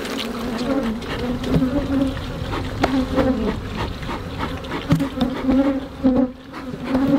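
Honeybees buzzing around an opened hive, a steady, slightly wavering hum, with a few sharp knocks now and then.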